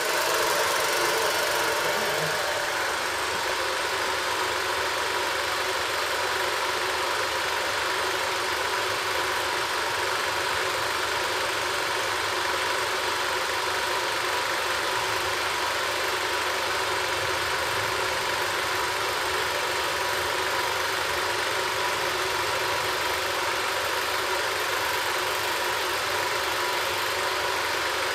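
Bolex S221 film projector running steadily on its first run after repair, its motor and film transport making a continuous whir with a steady high whine.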